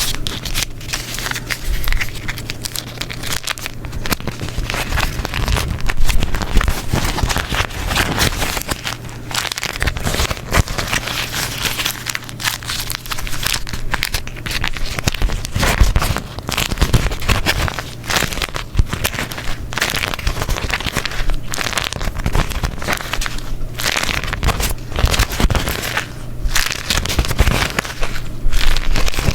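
Beeswax paper being crumpled and folded by hand: a dense, continuous crackling and crinkling with a sticky quality.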